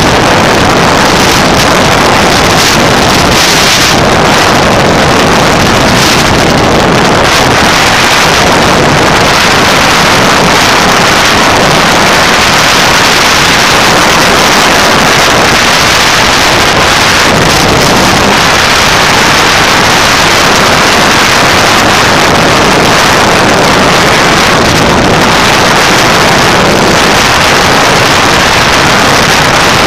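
Wind rushing over the microphone of a camera on a moving motorcycle at road speed, with riding noise underneath: a loud, steady roar without a clear engine note.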